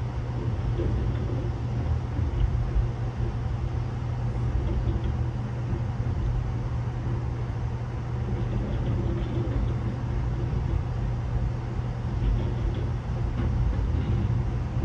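Double-stack container freight train rolling past on the next track: a steady rumble of the well cars on the rails, heard from inside a passenger car.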